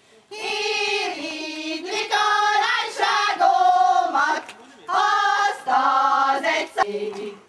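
A group of women singing a Hungarian folk song together, voices only, in phrases with a short break about halfway through.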